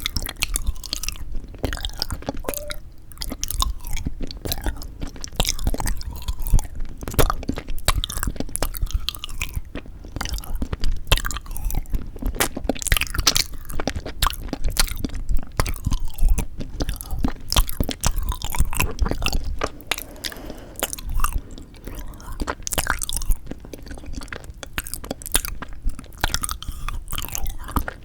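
Close-miked chewing and biting of frozen yanggaeng (sweet red bean jelly), with crunching and many irregular sharp clicks.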